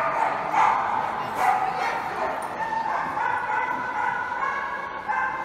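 Dog barking and yipping in quick short calls about twice a second, then a drawn-out whine from about three seconds in.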